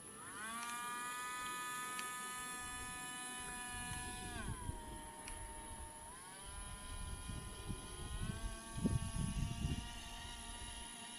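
High-pitched whine of two tiny 6 mm quadcopter motors spinning the solar boat's ducted propellers: it speeds up right at the start, holds steady, drops in pitch about four seconds in as the motors slow, then rises again and steps up once more near the end. Low rumbles of wind on the microphone come and go in the second half.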